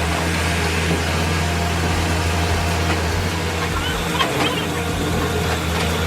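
Heavy diesel engine of a forestry machine running steadily, with a deep constant hum and a few faint short high squeaks about four seconds in.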